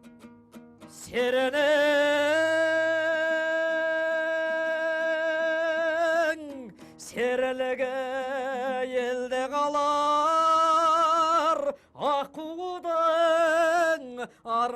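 A man singing a Kazakh folk song in the Mongolian style, holding long drawn-out notes with a wavering vibrato, in three long phrases.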